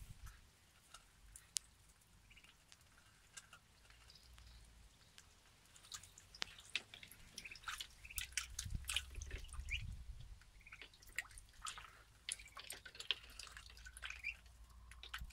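Muscovy ducklings dabbling at a tub of water, their bills dipping and dripping in faint scattered clicks and small splashes. Sparse at first, busier from about six seconds in.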